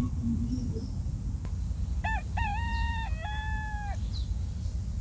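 A rooster crows once, a cock-a-doodle-doo of about two seconds starting around two seconds in, its last long note dropping at the end, over a steady low rumble.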